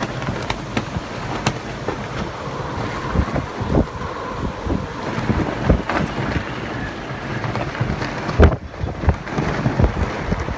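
Gusting wind of a neverin, a sudden Adriatic summer squall, buffeting the microphone with many irregular low thumps over a steady rush.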